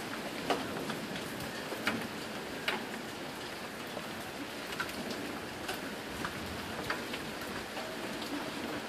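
Steady thunderstorm rain hissing, with single drops ticking sharply and irregularly on a hard surface close by, about once a second.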